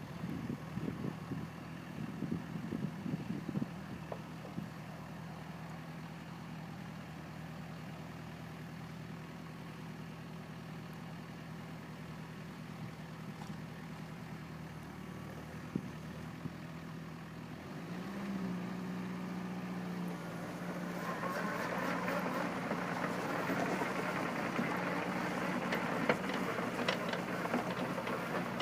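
Mini excavator's diesel engine running steadily at idle; about two-thirds of the way through its pitch steps up as the engine speeds up, and the sound grows louder and noisier toward the end.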